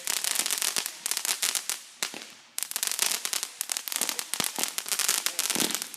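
Consumer fireworks going off in a dense, rapid string of crackling pops, with a brief lull about two seconds in before the crackling starts again.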